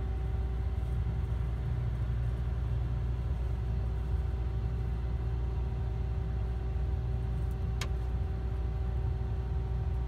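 Combine harvester running steadily while stopped, heard from inside the cab: an even low drone with a constant hum. A brief faint high squeak comes about three-quarters of the way in.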